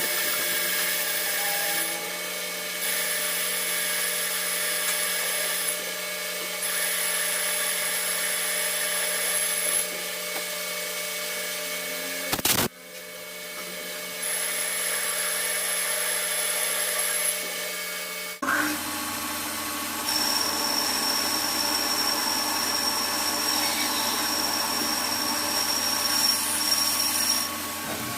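Metal lathe running steadily with a machine hum and high-pitched whines that come and go. The sound changes abruptly twice.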